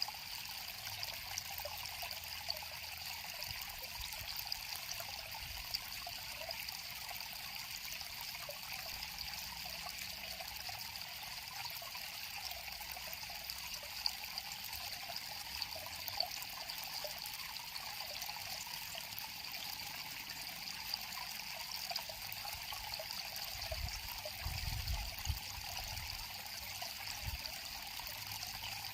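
River water flowing steadily, with a few brief low rumbles near the end.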